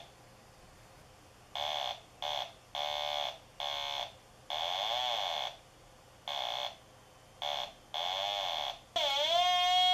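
Kit-built mini theremin giving short, wavering electronic notes that cut in and out about nine times, the pitch wobbling a little within each. Near the end a longer note swoops down and glides back up.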